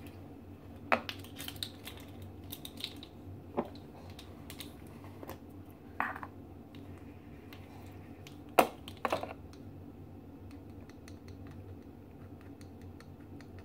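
Scattered light clicks and taps of plastic measuring spoons and a small spice jar being handled while measuring nutmeg into a mixing bowl, the loudest about a second in, at six seconds and twice near nine seconds, over a faint steady low hum.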